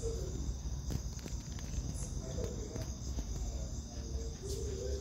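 Crickets trilling steadily in a high-pitched chorus, with a few light knocks about a second in.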